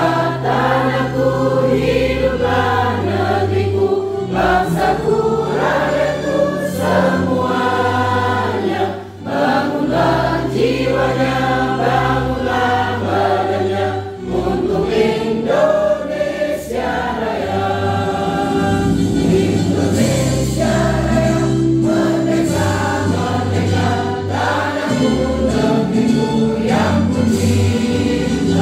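A group singing a song together over an instrumental accompaniment with held bass notes that change every second or two.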